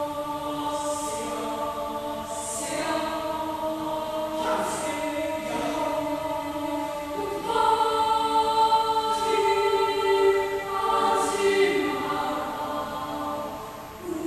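Children's choir singing long held notes in several parts at once, the voices moving together from chord to chord, with soft hissing consonants at the starts of phrases.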